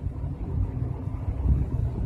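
Low, uneven rumbling noise with no clear pitch, swelling to its loudest about one and a half seconds in.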